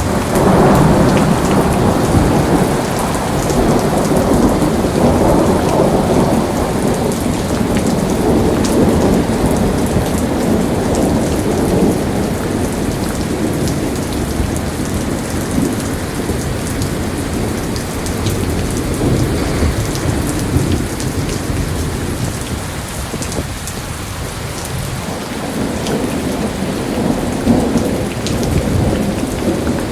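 Torrential rain pouring down steadily, a loud dense rush with a heavy low rumble that eases for a few seconds about three-quarters through, then builds again.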